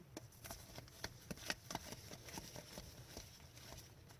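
Hockey trading cards being handled and flipped through one after another: a scatter of faint, irregular clicks and light slides.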